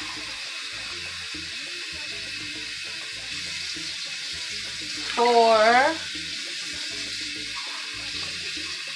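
Pot of beef stew in tomato sauce simmering on the stove, a steady bubbling hiss. About five seconds in, a short rising voice-like sound rises above it and is the loudest thing.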